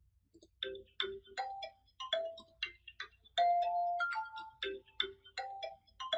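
A melody of short, chiming pitched notes with sharp attacks, played one after another at changing pitches.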